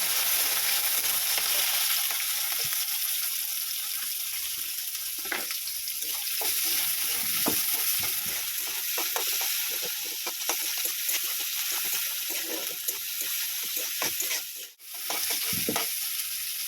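Chopped onions sizzling in hot oil in a kadai, stirred with a spatula that scrapes and clicks against the pan. The sound briefly drops out near the end.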